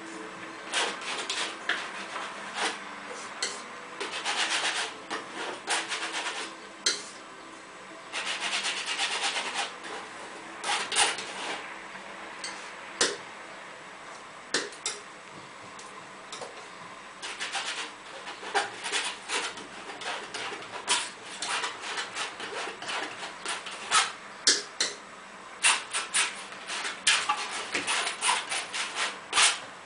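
Irregular clicks, taps and rubbing scrapes of painting tools being handled, with a paintbrush scrubbing on stretched canvas near the end.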